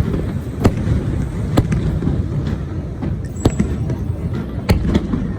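Aerial fireworks bursting: four sharp bangs, irregularly spaced about a second or two apart, with a few fainter ones, over a steady low rumble.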